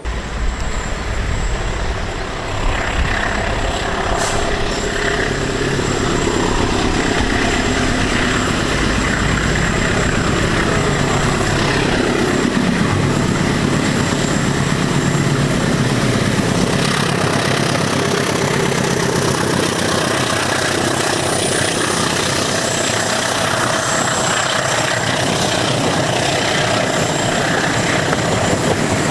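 Diesel locomotive hauling a passenger train past at close range. The deep engine rumble is strongest for about the first twelve seconds, then fades into the steady noise of the passing carriages.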